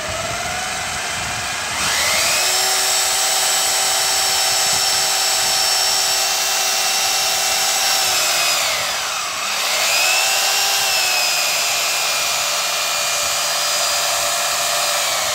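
Boray electric hammer drill motor running with a steady whine. It climbs to full speed about two seconds in, sags briefly and spins back up about nine seconds in, then holds and begins to wind down at the very end.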